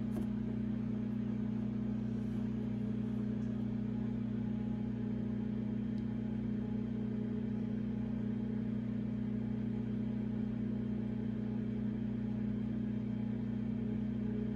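An electric kitchen appliance running with a steady low hum.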